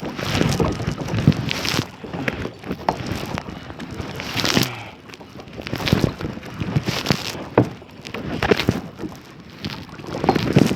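Kayak paddle dipping and splashing in the water at irregular strokes every second or two, with wind noise on the microphone.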